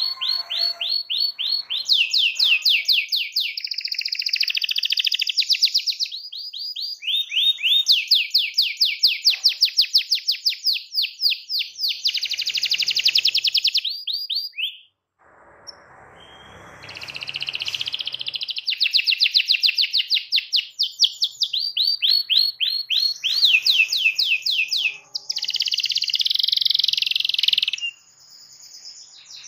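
Domestic canary singing in long rapid trills ('rolls'), each a fast run of the same high note repeated, one run after another, with a short break about halfway.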